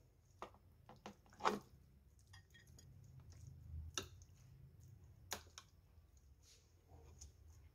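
Raw chicken pieces dropped into a plastic food-processor bowl and moved about with a metal spoon: soft wet plops and a few sharp clicks against the bowl, the loudest about a second and a half in.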